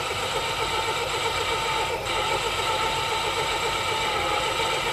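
Small DIY lathe running steadily while a carbide insert turns a brass workpiece, a steady motor whine over a fast even ripple. With its loose X-axis bolts now tightened, the cut sounds good.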